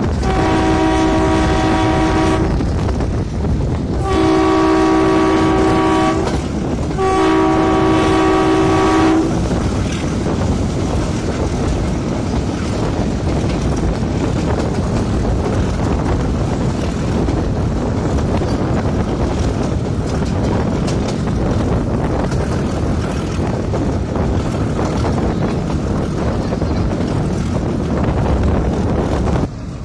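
Metre-gauge YDM4 diesel locomotive's horn sounding three blasts of about two seconds each, a two-note chord, followed by the steady running noise of the moving train: engine and wheels on the track.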